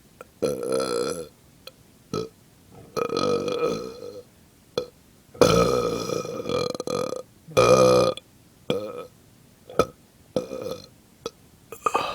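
A person belching over and over, about nine belches in a row, some brief and some drawn out over a second or more, the longest and loudest near the middle. The belches let out gas from a small bloat of the stomach.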